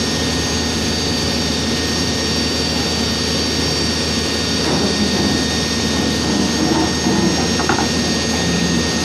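Backhoe's diesel engine running steadily, a constant drone with a thin high whine over it.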